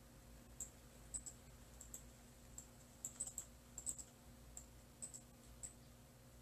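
Faint, irregular light clicks, a few a second and busiest about three to four seconds in, over a low steady hum in a quiet room.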